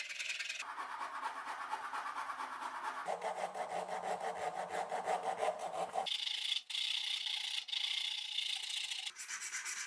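Round file scraping back and forth across an ash wood knife handle clamped in a vise, stroke after stroke, shaping the handle. The tone of the scraping shifts abruptly about every three seconds.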